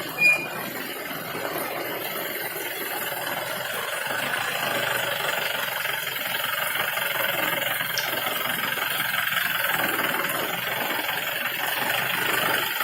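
Jeep engine running steadily. A brief high-pitched chirp is heard just after the start.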